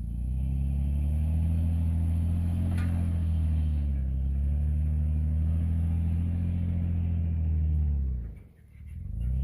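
Off-road vehicle engine running under steady load, with its pitch sagging slightly about four seconds in. A single click comes a little before that, and near the end the engine sound drops away sharply and then builds back up.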